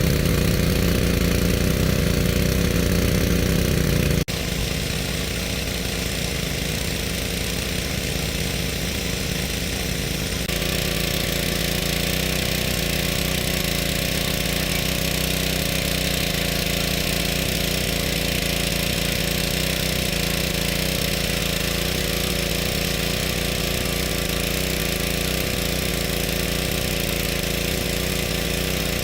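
Small engine running steadily at an even speed, with abrupt changes in its sound about four seconds in and again about ten seconds in.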